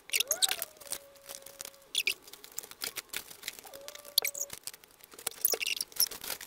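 Cut cardboard pieces being handled and pressed together: scattered light clicks, scrapes and crinkles. A faint steady hum is heard twice, once about a second in and once after four seconds.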